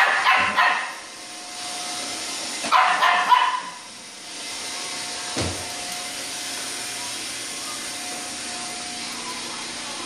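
Shetland sheepdog puppy barking at a running Roomba robot vacuum: two short bursts of yapping barks about three seconds apart over the vacuum's steady whir. A single knock comes about five seconds in.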